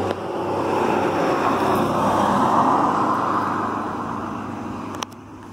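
Road noise of a passing vehicle, swelling and then fading, cut off abruptly with a click near the end.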